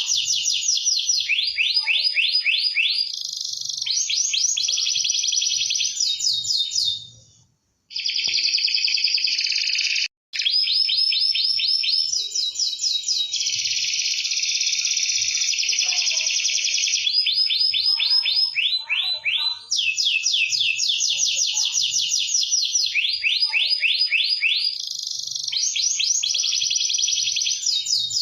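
Canary in full, vigorous song: a long run of rapid trills, each a fast string of repeated notes, switching to a new trill every second or two. The song breaks off for about a second around seven seconds in and cuts out again for an instant near ten seconds.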